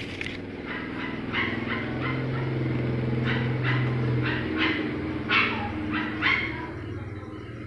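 A dog barking and yapping repeatedly in short sharp calls, over a steady low hum.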